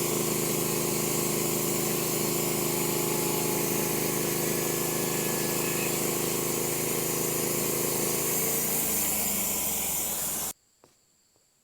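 An engine running steadily under a loud, even hiss; it starts and cuts off suddenly, and its low note shifts down a little near the end.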